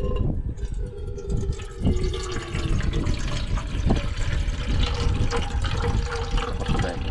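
Water being poured into a container: a steady splashing stream with a faint ringing tone, starting about half a second in.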